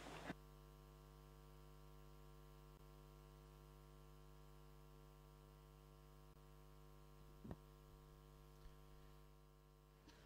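Near silence: a steady electrical hum on the sound feed, with one faint tap about seven and a half seconds in.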